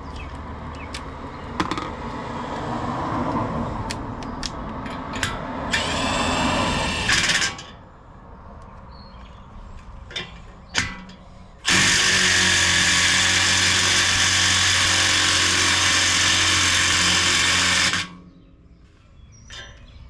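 Cordless power drill running: a short run at about six to seven seconds in, then one long steady run of about six seconds that cuts off suddenly. Clicks and knocks of parts being handled come before it.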